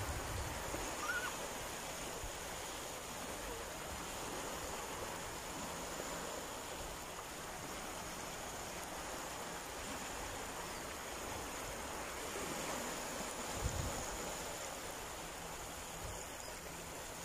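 Steady surf at the seashore, an even hiss of waves, with a brief low thump about fourteen seconds in.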